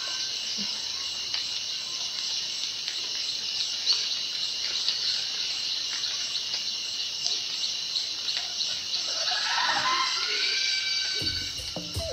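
Steady high-pitched drone of a rainforest insect chorus, with scattered short animal calls that gather into a brief flurry near the end. Music comes in just before the end.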